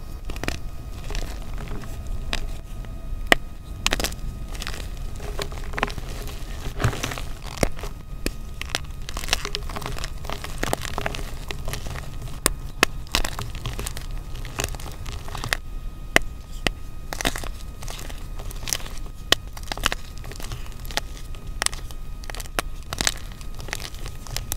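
Blocks of crunchy gym chalk crushed and crumbled between the fingers, giving a continuous run of irregular sharp crunches and crackles as pieces break and fall onto the pile.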